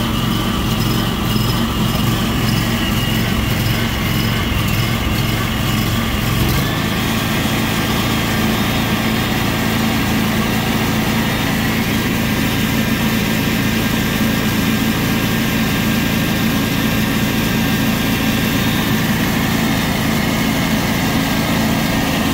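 The John Deere X720 lawn tractor's Kawasaki V-twin engine is running steadily, just started so its stator output can be tested. Its tone shifts slightly about six and a half seconds in.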